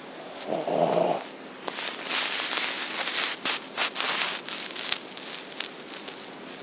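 A pet snoring: one pitched snore about half a second in, then a run of short, breathy hissing snorts.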